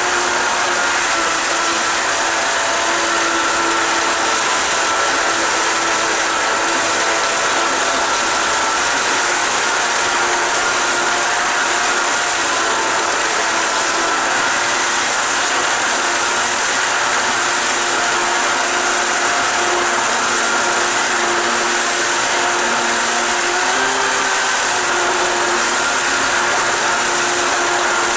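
Electric jet-surfboard jet drive running steadily on a test rig, a steady motor whine over the loud rush of water churning out of the pump outlet.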